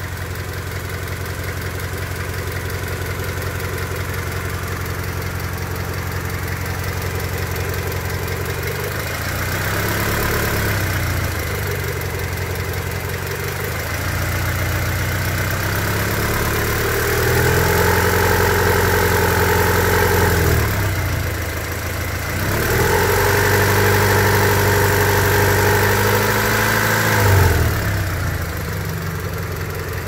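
1999 Honda Civic EX's D16Y8 1.6-litre four-cylinder idling, then revved up three times, the last two held for a few seconds before dropping back to idle. It makes a tapping like a bad rocker or lifter, which the owner says could be a sign of worn cylinders causing piston slap in an engine that is losing compression and burning oil.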